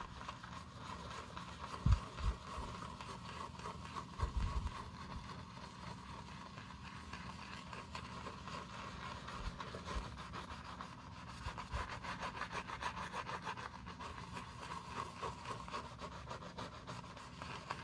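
Soft-bristled shoe brush scrubbing foaming cleaner into the smooth black leather of a mouldy loafer: a fast, steady wet scratching of bristles through lather. There are a couple of dull bumps in the first few seconds.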